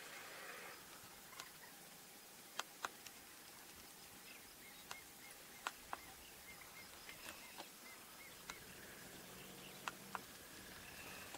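Faint open-air hiss with scattered sharp clicks and, in the middle, a quick run of six or seven soft, high chirps from a small bird.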